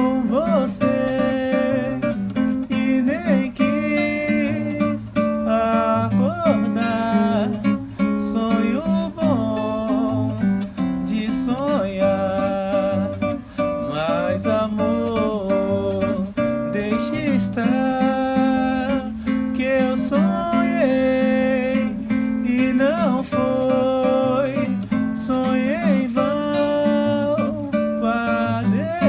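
Samba song playing: acoustic guitar accompaniment with a melody line over it that bends in pitch.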